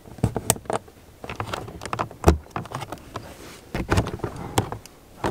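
Irregular clicks and knocks of small plastic and metal parts as a Dometic Seitz window stay is clipped back together at the window frame and worked with a screwdriver.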